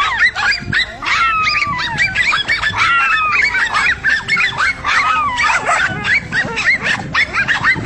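Several dogs yelping and barking at once in a dense, overlapping chorus of short high calls, with a few drawn-out falling whines.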